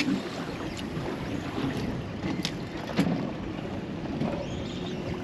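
Wind buffeting the microphone and water slapping against a small boat's hull, with a few sharp clicks, the loudest about two and a half and three seconds in.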